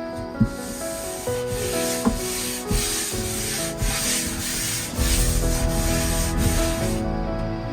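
Repeated rough scraping strokes, about two a second, with a few sharp knocks near the start, over gentle background music.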